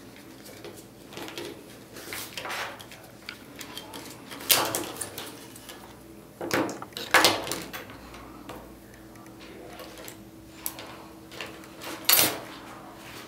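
Small plastic parts of an Aqua-Vu Micro Plus monitor housing being handled and fitted together: scattered clicks and knocks, the loudest about four and a half, seven and twelve seconds in.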